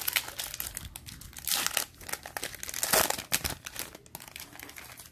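Plastic-foil trading-card pack wrapper being torn open and crinkled by hand, a run of crackles with louder rips about a second and a half in and about three seconds in.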